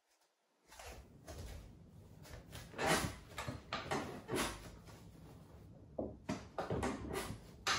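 Soft knocks, scrapes and rustles of a person sitting down on a chair and settling at a digital piano, starting about a second in.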